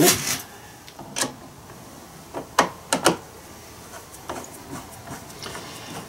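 Parts of a concrete saw being handled and fitted back together during reassembly: a few sharp knocks and clicks, most in the first three seconds, with fainter ones after.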